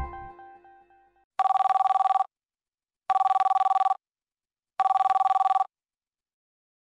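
Phone ringtone: an electronic trilling ring on two tones, like a telephone bell, sounding three times with about a second's pause between rings. A previous tune fades out just before the first ring.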